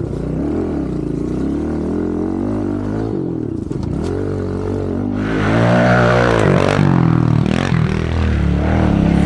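Kawasaki KLX110 pit bike's small single-cylinder four-stroke engine revving up and down as it is ridden hard through tight corners, heard from the rider's helmet. About five seconds in, the engine gets louder.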